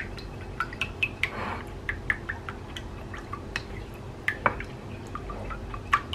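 Spoon beating an egg in a ceramic plate: irregular clicks and taps of the spoon against the plate, with light sloshing of the liquid egg.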